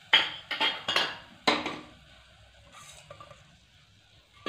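Stainless steel pot clinked and knocked by a cup or utensil: a quick run of sharp metallic knocks, each ringing briefly, in the first second and a half, then quiet until one more knock near the end.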